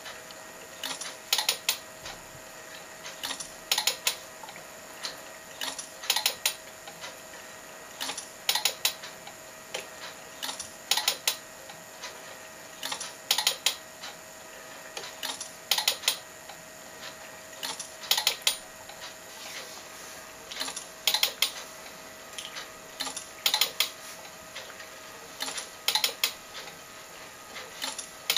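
Homemade frame-by-frame telecine running at about 24 frames a minute: a short cluster of mechanical clicks from the film advance and the compact camera taking its shot, repeating about every two and a half seconds over a steady hum.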